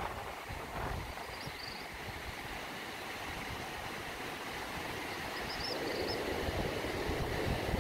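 Atlantic surf washing onto the shore in a steady, even rush, building louder near the end as a wave comes in, with low wind rumble on the microphone.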